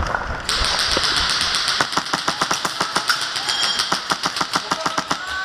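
Airsoft gun firing a long, rapid string of evenly spaced shots over a steady hiss, starting about half a second in and stopping just before the end.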